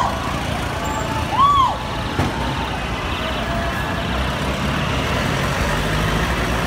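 Steady city traffic noise with a low rumble. About a second and a half in comes one short rising-and-falling hoot.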